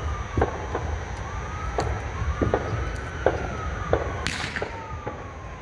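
An emergency siren wailing, its pitch slowly rising and falling, with scattered sharp clicks and a brief rush about four seconds in.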